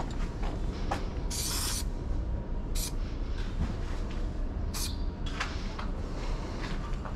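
Aerosol spray paint can hissing in short bursts: one longer spray about a second and a half in, then three quick ones, going over the outline of a throwup. A steady low background rumble runs underneath.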